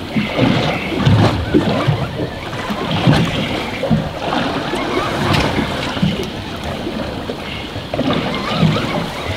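Wind and open-ocean waves: water washing against the boat's hull, with gusts buffeting the microphone every second or two.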